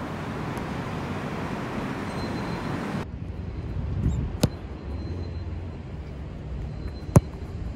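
Football kicked on artificial turf: two sharp thuds of boot striking ball, one about four and a half seconds in and a louder one near the end. Under them runs steady outdoor background noise of wind and distant traffic, which turns quieter a few seconds in.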